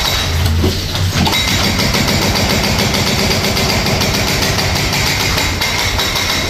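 Yanmar excavator's engine running while its hydraulic breaker hammers at a concrete slab in rapid, steady blows.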